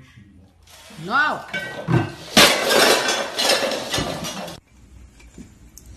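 A ceramic vase pushed off by a cat hits the floor with a thump and shatters, the pieces crashing and clattering for about two seconds.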